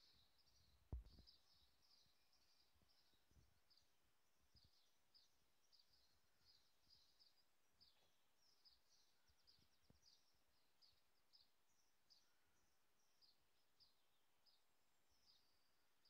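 Faint dawn chorus: birds singing, a steady stream of short, high chirping notes. A single low thump about a second in.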